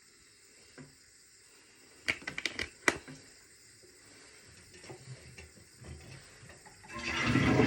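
A cluster of sharp clicks and knocks, then a few fainter knocks, and about seven seconds in a toilet flush starts with a loud rush of water.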